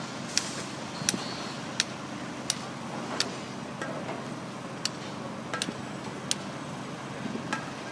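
Caterpillar 324D hydraulic excavator's diesel engine running steadily, with sharp clicks about every 0.7 seconds from the working machine.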